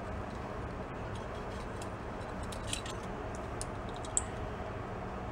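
Small metal clicks and ticks as a light socket and its spring contact are handled and fitted together by hand, with one sharper click about four seconds in, over a steady low background hum.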